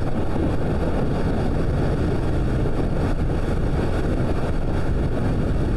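Motorcycle cruising at a steady speed: engine running with wind rushing over the microphone, a steady low rumble.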